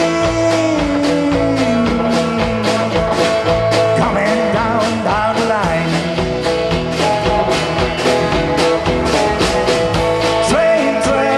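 Live rock and roll band playing with electric guitar, acoustic guitar and drums at a steady beat, with some bending guitar notes in the middle.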